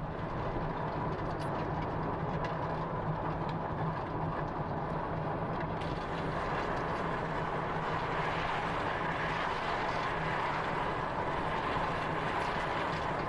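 Steady road noise inside a moving car's cabin, with a steady low hum under it.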